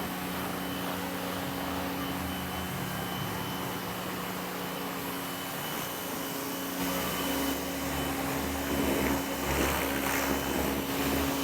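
Bosch Aquatak 130 electric pressure washer running, its motor humming steadily while the lance sprays a high-pressure water jet to rinse off foam. The spray gets louder and rougher about seven seconds in.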